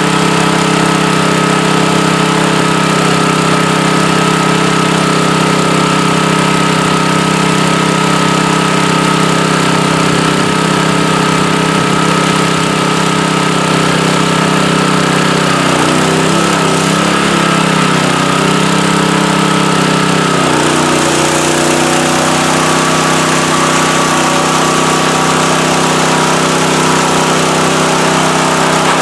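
Honda GX160 single-cylinder four-stroke engine running steadily, driving a semi-trash water pump. About two-thirds of the way in the engine note wavers and settles lower while a hissing rush grows louder, as the freshly re-clocked pump primes and starts throwing water.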